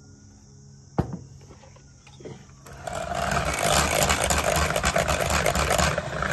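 Electric hand mixer beating feta cheese, tzatziki and olive oil in a stainless steel bowl. A knock about a second in, then the mixer starts about three seconds in and runs loudly and steadily, its beaters churning the thick mixture.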